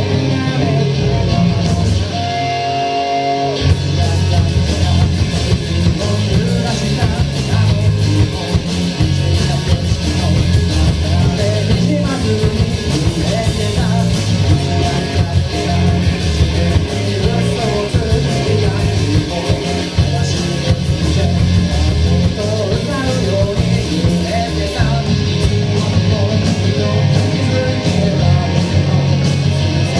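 Live rock band playing a song with electric guitar, bass, drums and singing. About two seconds in, the band drops out to a briefly held guitar note, then comes back in full.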